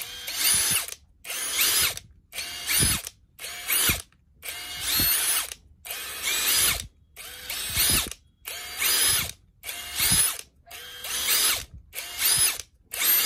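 Makita-branded brushless cordless impact driver run free with no load in about a dozen short trigger pulls. Each burst is a whine that rises in pitch as the motor spins up, then stops.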